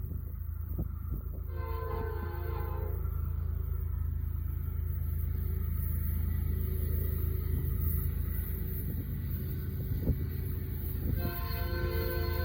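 Diesel freight locomotive air horn sounding two blasts of several tones at once, the first about a second and a half long, the second starting near the end, over the steady low rumble of the locomotives' engines.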